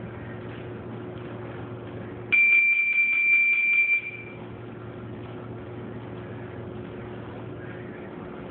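One loud, steady, high-pitched electronic beep lasting about two seconds, starting a little over two seconds in, over a steady low room hum.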